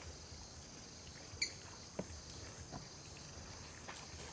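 Faint rural ambience: a steady high insect drone, with one short sharp chirp about one and a half seconds in and a couple of soft clicks after it.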